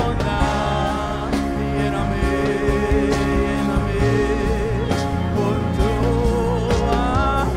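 Slow Christian worship song: a solo voice sings long held notes with vibrato over instrumental accompaniment.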